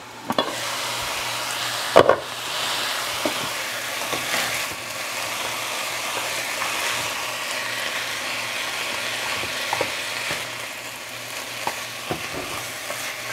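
Lean ground beef sizzling as it browns in a skillet, the sizzle coming up as the lid is lifted, with a sharp clack about two seconds in. A spatula then scrapes and taps against the pan as the meat is broken up and stirred over the steady sizzle.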